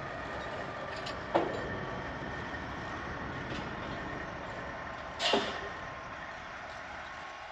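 Diesel semi truck pulling a loaded lowboy trailer slowly past, its engine running steadily, with two loud sharp knocks, about a second and a half in and again about five seconds in.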